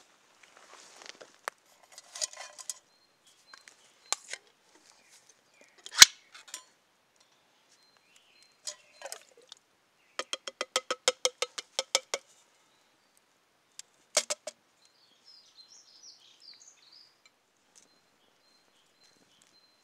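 Canned soup glugging out of a tin into a metal camping mug: a quick, even run of about fourteen glugs over two seconds. Around it are scattered clicks and knocks from handling the can and mug, with one sharp knock about six seconds in and another clink a few seconds after the pour.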